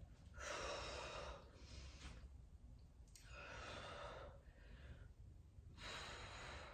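A woman breathing hard under the effort of single-arm dumbbell rows: five faint, forceful exhales, about one every second and a half.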